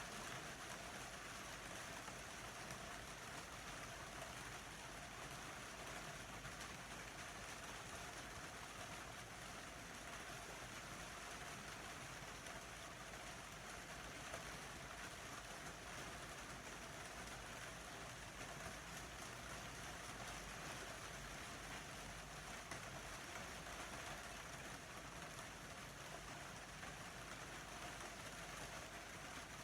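Steady rain falling, a faint even hiss.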